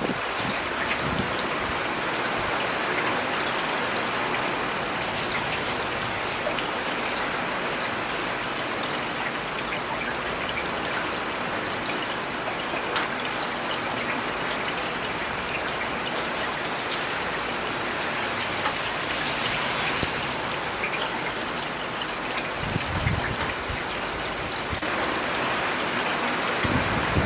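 Steady city rain, with scattered sharp drop ticks and a brief low rumble a little over three quarters of the way through.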